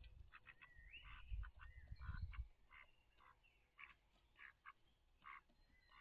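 Faint bird calls: a string of short, repeated calls with a few whistled notes gliding up and down. A low rumble runs under the first half.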